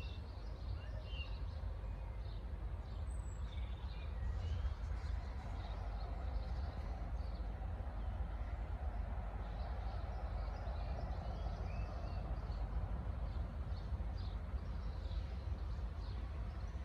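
Outdoor ambience: scattered faint bird chirps over a steady low rumble.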